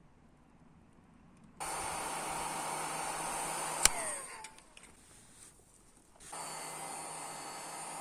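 A heat gun blowing hot air. It switches on abruptly, cuts off with a click about four seconds in as its fan winds down in pitch, and comes on again near the end.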